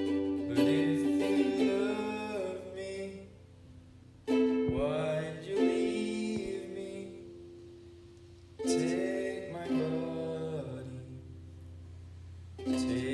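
A soprano ukulele strummed slowly, one chord about every four seconds left to ring and fade, with a man singing over it.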